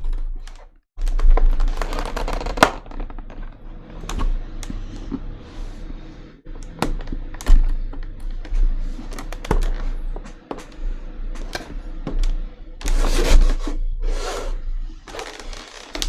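Stiff plastic clamshell packaging being handled and pried open, a rapid irregular run of clicks, cracks and crinkles, with a steady low electrical hum underneath.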